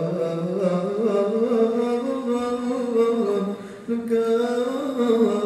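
A voice singing long, held, wavering notes in a chant-like melody, with a short break for breath about three and a half seconds in.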